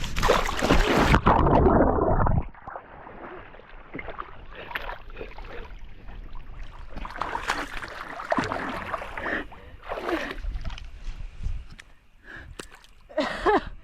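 Water splashing and sloshing, loudest in a burst over the first two seconds or so, then in smaller irregular splashes.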